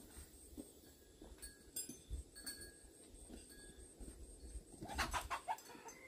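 Faint bird calls: scattered short chirps, then a quick rapid burst of calls about five seconds in.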